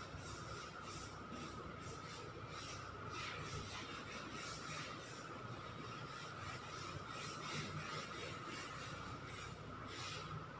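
Chalk scratching on a blackboard in quick, repeated short strokes as a drawing is shaded in. A faint steady tone runs underneath.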